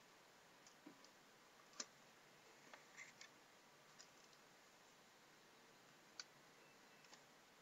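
Near silence broken by about eight faint, sharp clicks at irregular moments, three of them close together around three seconds in.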